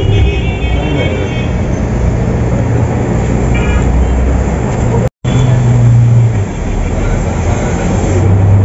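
Volvo 8400 city bus on the move, heard from onboard: a steady low engine hum that swells and eases, with road and traffic noise. The sound cuts out completely for a split second about five seconds in.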